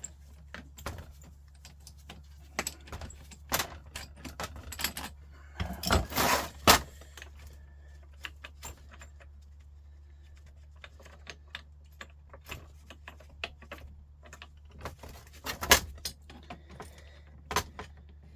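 Scattered metal clicks and clinks of hand tools and parts on a Volvo truck starter motor being taken apart, as a tool is fitted onto and worked against its tight bolts. There is a louder clatter about six seconds in and sharp knocks about a second apart near the end, over a steady low hum.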